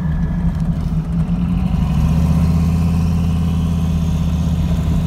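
Turbocharged 5.3 L LS V8 of a 2000 Chevy Silverado 1500 running steadily at about 2000 RPM, heard from inside the cab while the truck rolls along. The 4L60E is in second gear, which acts like neutral, so the engine turns over unloaded; something inside the transmission is burnt out.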